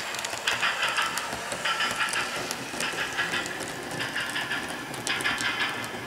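HO scale model train running on layout track, its wheels clicking and rattling over the rails in repeated bursts about once a second.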